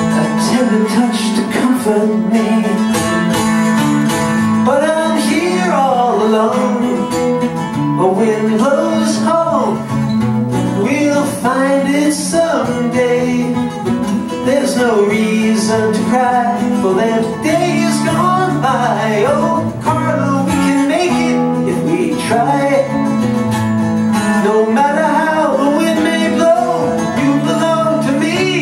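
A live solo acoustic song: a steadily strummed mandolin-family instrument, with a man's voice singing a melody over it.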